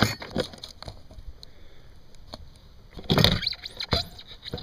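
Metal clunks and knocks as a Mercedes W202 windshield wiper motor and linkage assembly is lifted out of the cowl, with a few small clicks and one louder, rattling clunk about three seconds in.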